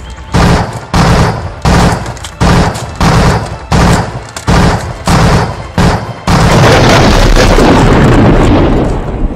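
Gunshots: about nine loud shots at a steady pace of roughly one and a half a second, then about three seconds of continuous blasting that tails off near the end.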